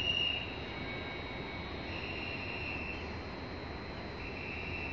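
High electronic warning tone beeping three times, each beep about a second long and roughly two seconds apart. These fit the door-closing warning of an Alstom Coradia train about to depart. Under it is a steady station hum.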